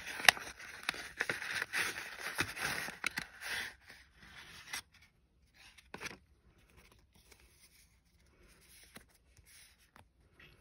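Kraft paper envelope rustling and crinkling as it is handled and opened by hand, with sharp paper clicks and scrapes, for about the first five seconds. After that only faint, scattered paper handling sounds.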